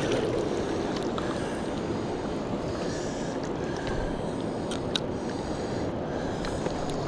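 Steady rushing noise of fast-flowing river water below a dam, with a few light clicks.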